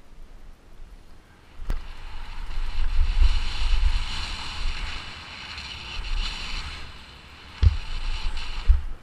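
Kona Process 167 full-suspension mountain bike speeding down a dirt singletrack, heard through a helmet camera: wind rushing over the mic and tyres rolling on dirt, building about two seconds in. There is a sharp click at that point and two heavy thumps near the end as the bike hits bumps.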